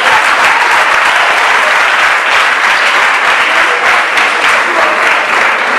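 A large audience applauding: many hands clapping steadily together.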